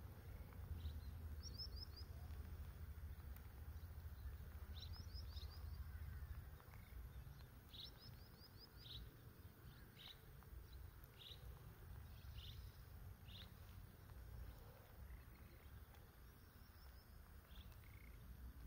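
Faint outdoor ambience with a small bird chirping: short high chirps, some in quick runs of four or five notes, others single about once a second, over a low rumble that eases after about six seconds.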